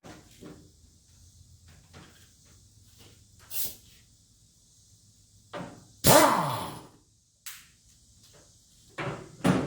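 Scattered knocks and clanks of hand tools and metal parts being handled while a mower deck spindle is taken apart. The loudest clank comes about six seconds in and rings briefly; two more knocks come near the end.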